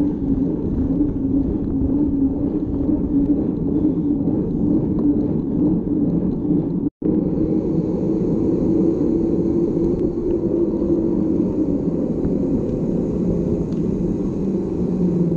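Steady rumble of wind and rolling noise on a camera microphone while riding a mountain bike, with a faint hum underneath; it cuts out for an instant about seven seconds in.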